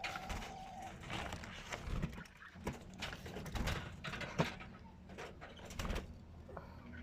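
Budgerigar chicks calling in rough, irregular bursts, mixed with sharp clicks and knocks.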